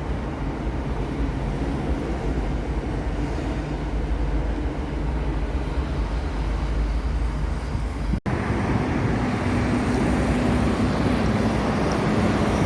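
Steady rumble of road traffic from a highway, cut off abruptly about eight seconds in and replaced by a hissier, wind-blown outdoor noise.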